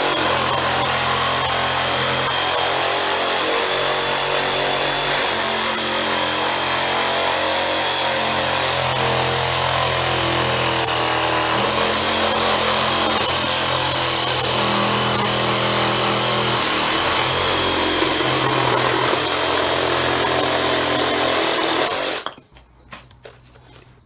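Black+Decker BDCR18N 18 V cordless reciprocating saw cutting through a wooden beam with its supplied wood blade, running continuously, its pitch shifting a little as it goes. It stops abruptly about 22 seconds in.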